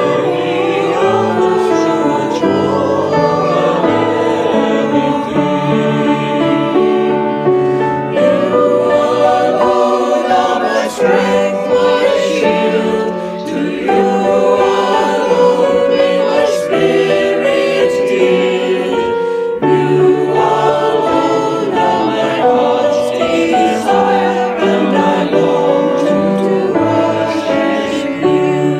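A choir singing a slow worship hymn with accompaniment.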